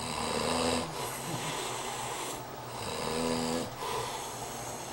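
A sleeping man snoring, two snores about three seconds apart.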